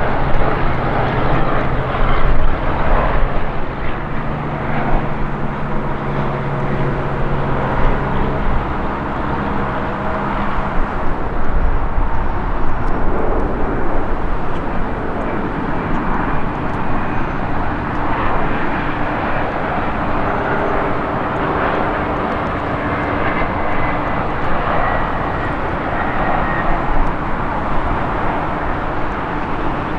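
Jet airliners on approach: first a Boeing 737 MAX's engines droning with steady tones, then, after a change about eleven seconds in, a Bombardier CRJ regional jet's rear-mounted engines, with a faint high whine.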